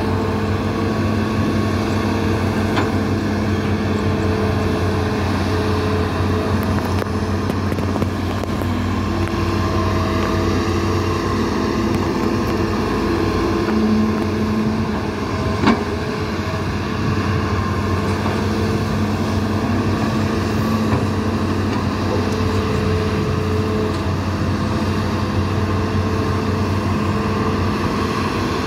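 Diesel engines of hydraulic excavators running steadily as they dig, with their pitch shifting now and then as the hydraulics take load. There is a single sharp knock a little past halfway.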